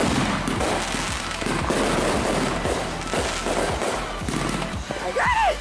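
Many fireworks and firecrackers going off at once in rapid, overlapping bangs and crackles. About five seconds in, a short whistle rises and falls.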